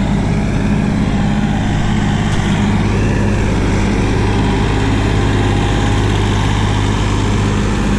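Kioti NX5510 55-horsepower diesel tractor engine running steadily as the tractor drives past close by, pulling a grain drill.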